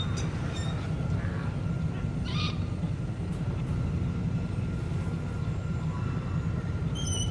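Sci-fi town ambience: a steady low rumble with a few faint, short high beeps and chirps scattered over it, one brief burst about two and a half seconds in and another near the end.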